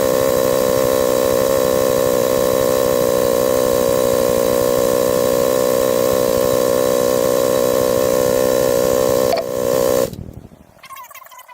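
Husqvarna TE250 enduro motorcycle engine running at a steady idle, then switched off about ten seconds in, the sound dying away within about a second.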